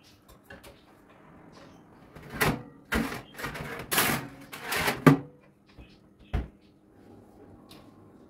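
Household handling sounds: a run of short rustling scrapes and clatters, a sharp click about five seconds in, then a single low knock.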